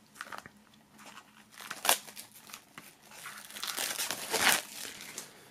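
Plastic shrink-wrap film being torn open and peeled off a CD digipack: irregular crinkling and crackling, with a sharp crackle about two seconds in and a denser, louder stretch of crinkling near the end.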